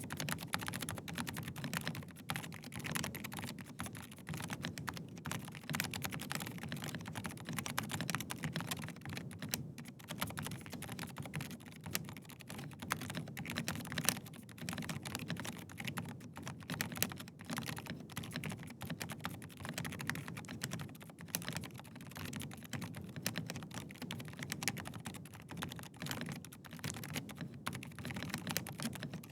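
Continuous fast typing on a Rapture FoxtRot Ultimate mechanical keyboard fitted with Gateron Silent Red switches, which are dampened silent linear switches. The keystrokes come as a dense, even stream of clicks.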